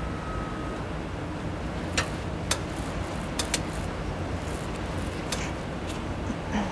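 Steady low background rumble with a handful of short, light clicks or taps: two about half a second apart, a close pair a second later, and one more a couple of seconds after that.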